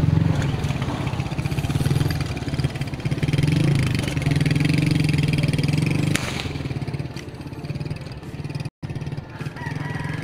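A small engine running close by: a loud, low, steady drone that eases off after about six seconds.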